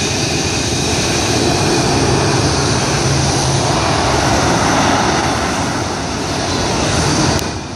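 Jet engines of fighter aircraft taxiing on the runway: a loud, steady rush with high whining tones over it, dropping away suddenly near the end.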